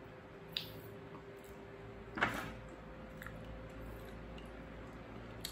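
Quiet eating with a spoon and fork: faint clicks of the utensils against a plate of rice, and one short louder mouth sound about two seconds in, over a faint steady hum.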